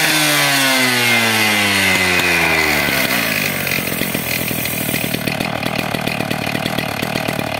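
Husqvarna K770 power cutter's two-stroke engine coming down off high revs: its pitch falls steadily over about three seconds, then it settles into an uneven idle at about 2,500 rpm.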